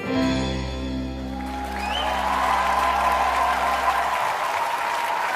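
The song's closing chord is struck and rings out, fading over about four seconds. A concert audience starts applauding about a second and a half in, with a whoop, and the clapping builds and holds.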